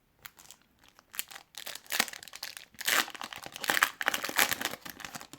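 Hockey card pack wrapper being torn open and crinkled by hand, a run of crackling rustles that gets louder about two seconds in.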